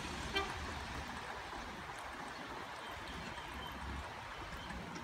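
Steady outdoor background noise, a low rumble under a soft hiss, with one short sharp pitched chirp about half a second in.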